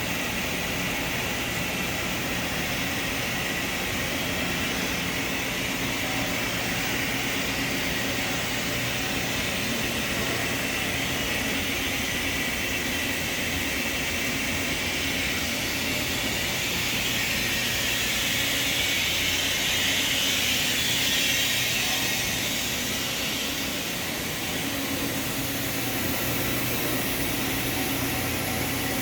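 Steady hum and hiss of industrial machinery in a machine shop, swelling slightly about two-thirds of the way through.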